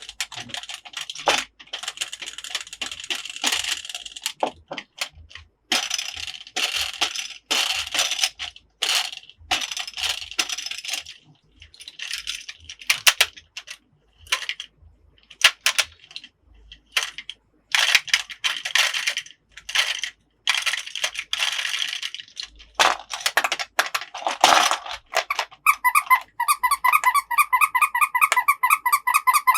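Plastic toy pieces of an Anpanman toy house playset being handled, with irregular clicking and rattling. About four seconds before the end, a rapid run of high squeaking pulses starts.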